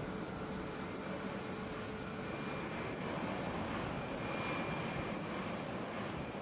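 Steady aircraft engine noise, with a faint high whine coming in about two seconds in.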